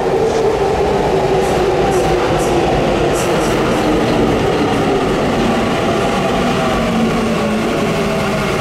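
Tokyu 5080 series train's Toshiba IEGT-VVVF inverter and traction motors whining, several tones falling slowly in pitch as the train slows. A few faint clicks sound early on.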